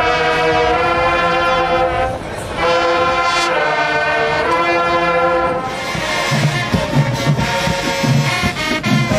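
High school marching band's brass section holding a long, loud sustained chord, breaking off briefly about two seconds in, then holding a second chord. About six seconds in, drum hits come in and the band plays on.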